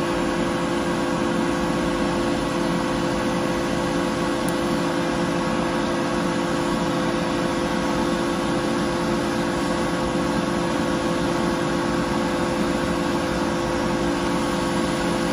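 PiPO desktop laser cutting machine running idle with a steady whirring hum from its fans, holding several constant tones and never changing in level.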